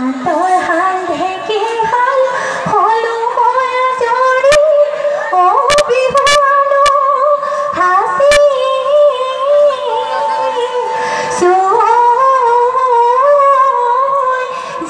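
Woman singing a Bihu song in a high voice, with long, wavering held notes and ornamented slides between them. A few sharp percussive hits fall in the middle.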